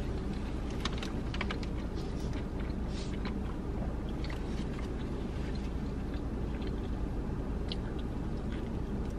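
A person chewing a fried chicken sandwich with a soft toasted bun, making scattered wet clicks and mouth smacks, and taking another bite near the end. A steady low hum runs underneath.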